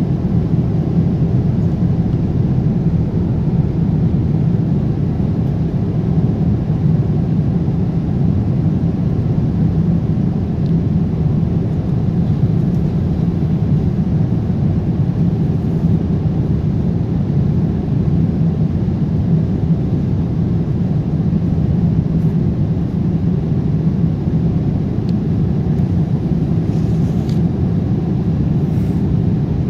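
Boeing 787-8 cabin noise: a steady low rumble of engine and airflow noise heard from a passenger seat, with a faint paper rustle near the end as a leaflet is handled.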